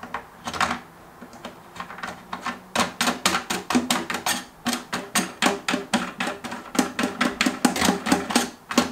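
Faucet mounting nuts being screwed by hand onto the shanks under a stainless steel sink: a rapid run of clicks and knocks, about four or five a second, from about three seconds in until near the end.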